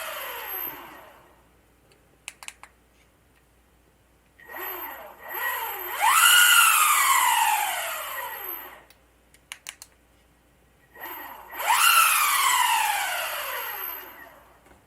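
Electric skateboard motor spinning the wheels up with a rising whine, then winding down in a long falling whine. This happens twice, after the tail of an earlier spin-down at the start. A few short clicks come just before each spin-up.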